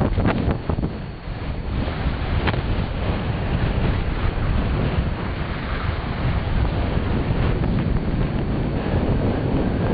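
Wind buffeting the microphone in a steady rush while skiing downhill, mixed with the hiss of skis sliding over snow.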